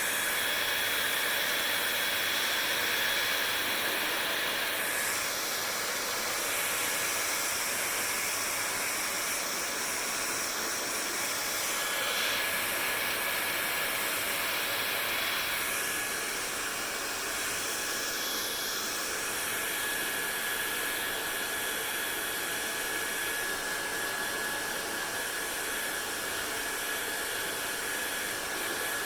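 Hair dryer running steadily, a continuous airy hiss with a faint high whistle, its tone shifting now and then.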